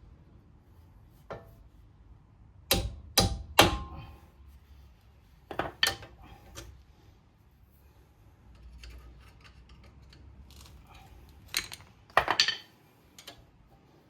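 Hammer striking metal as brake pad retaining pins are knocked into a Porsche 986 front brake caliper. Sharp blows come in groups: three loud ones about half a second apart a few seconds in, two more soon after, and another quick cluster near the end.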